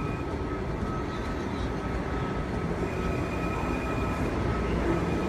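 Washington Metro train pulling into a station platform: a steady low rumble of wheels on rail with a thin, steady high-pitched whine over it, growing a little louder near the end.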